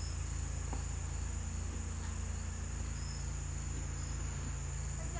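Steady, high-pitched chorus of insects, continuous throughout, over a low even rumble.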